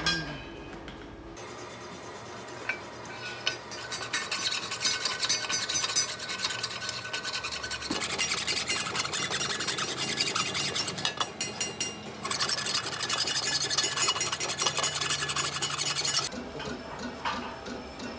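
Gritty scraping of metal being abraded in a machine shop, in two long stretches with a short break near the middle, cutting off abruptly near the end, over a faint steady machine hum.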